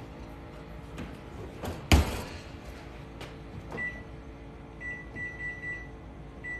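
Oven door shut with a single thud about two seconds in, then short electronic keypad beeps as buttons are pressed on a microwave control panel: one beep, a quick run of about four, and one more near the end.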